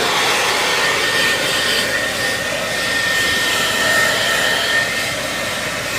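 Hand-held blow-dryer running steadily: a rush of air with a thin, high motor-and-fan whine held at one pitch.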